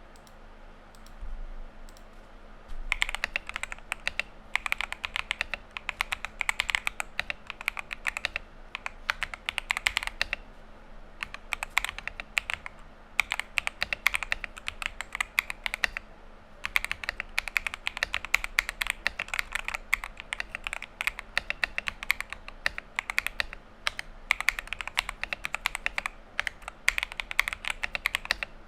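Typing on a Novice 68 mechanical keyboard with Akko Cream Yellow Pro linear switches: fast, continuous key strokes in bursts. The typing starts about three seconds in and has brief pauses.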